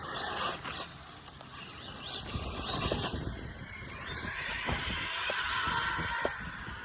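Arrma Mojave EXB RC truck driven hard: its electric motor whines, rising and falling in pitch as the throttle is worked, over a steady noise of tyres on rough ground and a few short knocks.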